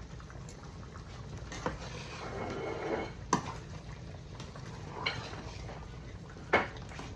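Beef and tomatoes simmering in a skillet, with four sharp clinks of a utensil against the pan; the last is the loudest.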